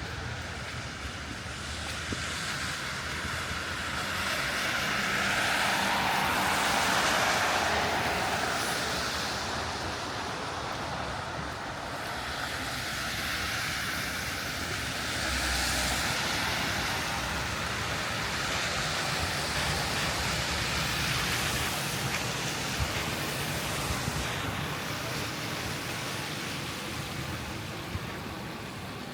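Street traffic on a snowy city street: the hiss of vehicles passing swells and fades several times, loudest a few seconds in.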